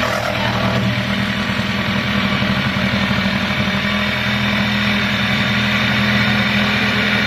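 Electric jigsaw running steadily as its blade saws through marine plywood, trimming the excess plywood flush along the edge of a boat hull.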